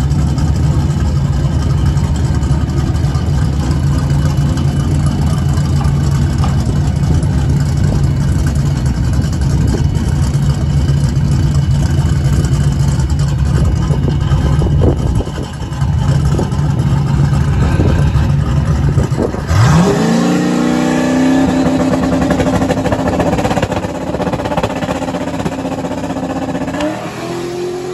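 Second-generation Pontiac Firebird drag car's engine idling with a choppy, lumpy beat, blipped a few times. About two-thirds through, it sweeps up and is held at a steady high rpm on the starting line. Near the end it rises again as the car launches down the strip.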